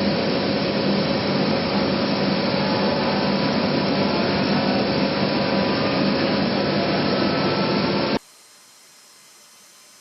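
Steady loud jet engine noise from a C-17 Globemaster III's turbofans, a dense even roar with a few steady tones in it. It cuts off abruptly about eight seconds in, leaving a much quieter background.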